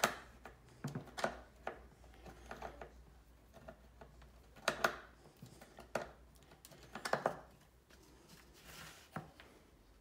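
Irregular light clicks and knocks of wooden spice-rack parts and small screws being handled on a workbench as the front bar is set in place, with louder knocks about five and seven seconds in.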